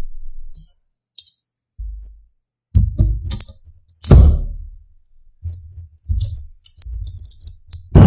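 Small neodymium magnet balls clicking and rattling as they snap onto and shift around a large block magnet, in irregular bursts of a second or less, each with a dull thump.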